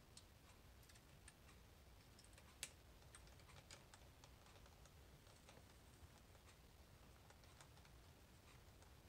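Faint, irregular small clicks and ticks of a tiny Phillips screwdriver working the heatsink screws of a laptop's cooling fan assembly back in, with one sharper click about a third of the way in.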